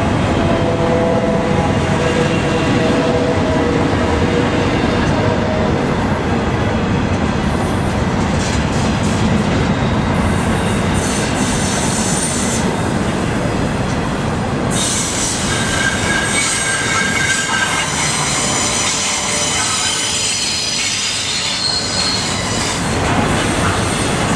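Double-stack container cars rolling past on a curve, their steel wheels squealing against the rails over a steady rumble. The squeal is several ringing tones, lower-pitched in the first few seconds and higher-pitched from about fifteen seconds in.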